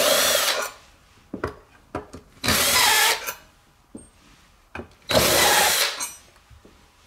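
Cordless drill backing out the screws that hold a boat seat's swivel plate, whining in three runs of about a second each, with small clicks and knocks between the runs.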